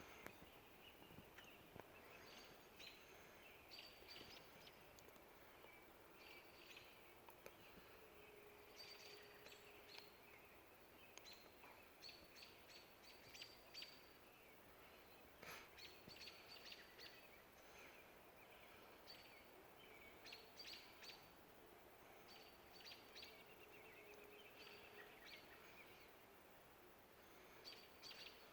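Faint dawn chorus of songbirds: many short chirps and calls from several birds, scattered throughout over a quiet background.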